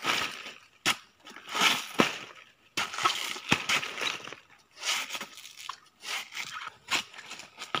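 Curved machete chopping into a banana stem and prising its outer sheaths off to bare the inner core: a series of sharp chops about once a second, each followed by a short crunching, tearing sound as a layer splits away.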